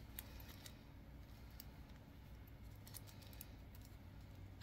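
Faint, scattered light clicks and crinkles of a clear plastic stamp packet being handled and turned over in the hands, over a low room hum.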